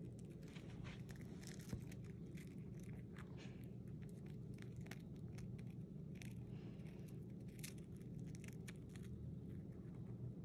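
A hamster nibbling the edge of a dry cracker: faint, quick, irregular crunching clicks, with one sharper click just under two seconds in. A steady low hum lies underneath.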